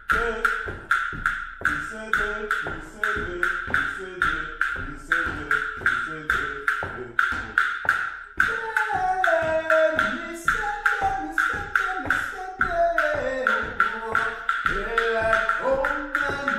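Wooden drumsticks clicked together in a steady beat, about two and a half clicks a second, with a voice singing over it. The singing is short and choppy at first, then turns into longer, gliding phrases about eight seconds in.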